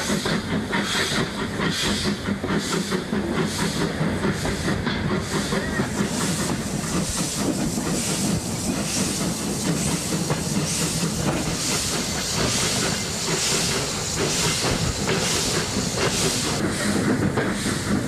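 LSWR B4 0-4-0 dock tank engine working a rail-laden bogie bolster wagon: a steady run of exhaust beats, about two to three a second, with steam hissing and the wagon's wheels running on the rails.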